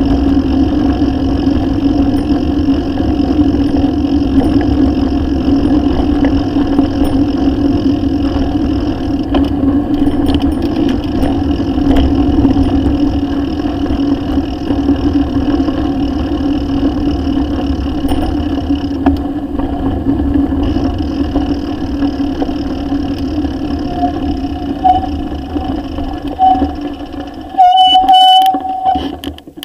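Steady rumble of wind and tyres on a gravel road, picked up by a bicycle-mounted action camera while riding. Near the end the bicycle brakes squeal in a high tone for a couple of seconds as the bike comes to a stop.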